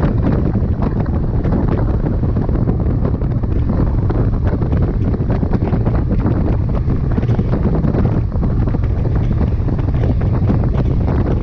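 Wind buffeting the microphone: a loud, steady low rumble with constant crackle.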